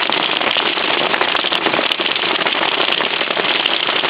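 Hail falling steadily: a dense, unbroken patter of countless small hailstones striking.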